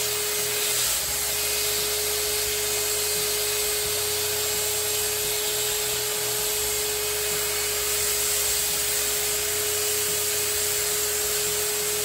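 Shop vac running steadily, sucking air through a Vinyl Vac wand as it draws the wet cleaning solution and rinse water out of a spinning vinyl record's grooves. One steady tone sits above the even rush of air.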